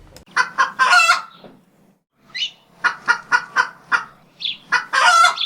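Chicken cackling: two runs of short clucks, each ending in a longer drawn-out call.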